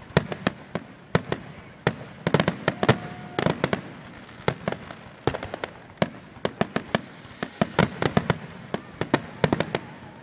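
Aerial fireworks shells bursting overhead in quick succession: rapid runs of sharp bangs and crackles, several a second with no let-up.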